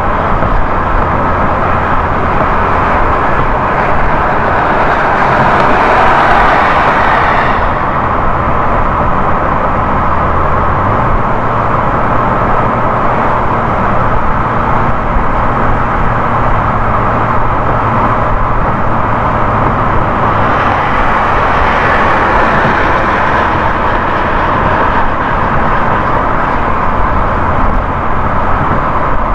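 Steady tyre and road noise of a car cruising on a highway, with a low engine hum underneath. The hum steps up in pitch about eleven seconds in and drops back about twenty seconds in.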